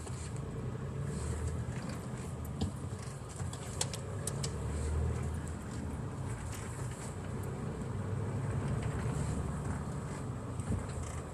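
Car driving, heard from inside the cabin: a steady low rumble of engine and road noise, with a few light clicks around four seconds in.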